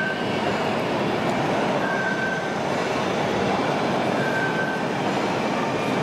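Radio-controlled Liebherr 742 crawler dozer model running: a steady mechanical clatter of its drive and tracks over sand, mixed with the general din of a busy hall. A short high beep sounds twice, about two seconds apart.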